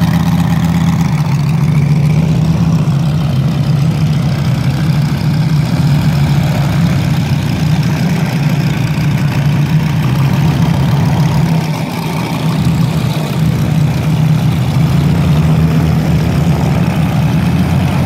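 Several Moki five-cylinder radial engines idling together in large-scale RC Wilga models: a steady, loud, low drone.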